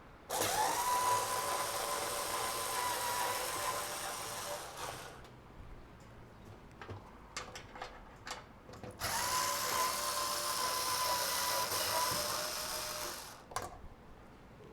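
Cordless drill-driver running twice, about four to five seconds each time, spinning up quickly to a steady whir. There are a few light clicks between the runs.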